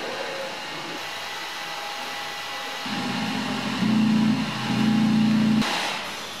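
Vacuum-cleaner blower motors running, with air rushing steadily through plastic hoses and tubes. From about three seconds in a louder low hum, changing pitch a couple of times, joins it and cuts off abruptly, followed by a short stronger gust of air.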